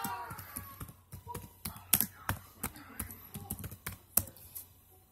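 Fingers tapping and handling a phone held close to its microphone: a string of irregular clicks and taps, with sharper ones about two seconds in and about four seconds in.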